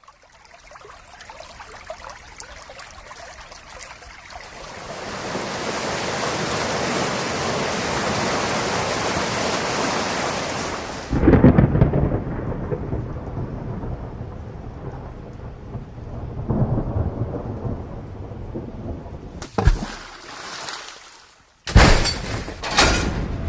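Thunderstorm sound effect: heavy rain hiss swelling over the first few seconds, then a loud thunderclap with rumbling about halfway through. A sharp crack comes later, then a run of loud crashes near the end.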